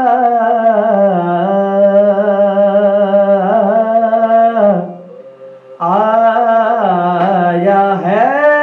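Unaccompanied male voices chanting a soz, the Urdu elegy recited at Muharram majlis. A long drawn-out note bends slowly for about five seconds, stops for a breath of about a second, and then a new phrase begins.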